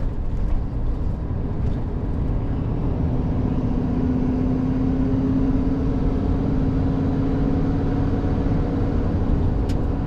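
Pickup truck driving, heard from inside the cab: a steady low engine and road rumble, with a hum that comes in about three seconds in and climbs slightly in pitch.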